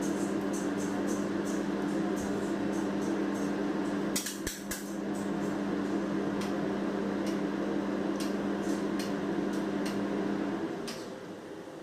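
A steady machine hum with two low steady tones, broken by a few light clicks and taps; the hum drops away about ten and a half seconds in.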